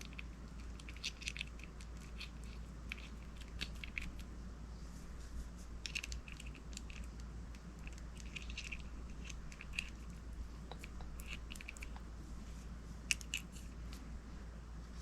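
Small metal fishing-reel parts being handled and fitted by hand: scattered light clicks and faint scrapes at irregular intervals, over a steady low hum.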